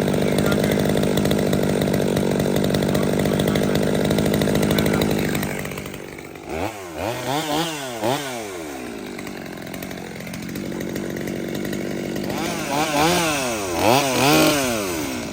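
Small two-stroke chainsaw engine held at a steady high speed for about five seconds, then dropping back. It is revved up and down in a quick series of throttle blips, settles to a lower idle, and is blipped several more times near the end, the way a saw is tested while its carburettor is being retuned.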